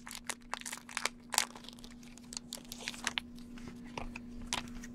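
Paper wrapping crinkling and rustling in the hands as a small packet of trading cards is unfolded, with many short crackles, over a faint steady hum.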